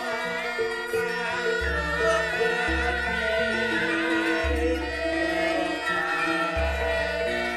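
Javanese gamelan ensemble playing, with held pitched tones and a deep low note sounding several times underneath.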